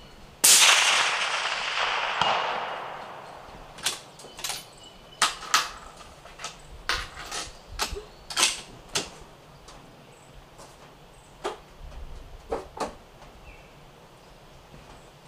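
A single shot from a Steyr SSG08-A1 .308 Win bolt-action rifle with an Otter Creek Labs Hydrogen suppressor, its report dying away over about three seconds. A run of sharp clicks and clacks follows as the bolt is worked, with a few more clicks later.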